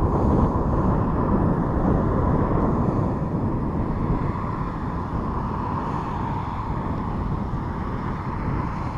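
Wind buffeting the microphone: a steady, rumbling rush of noise with no distinct events.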